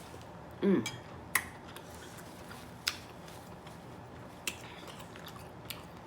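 Scattered sharp clicks and clinks of utensils against dishes while eating, about five separate ticks spread over several seconds.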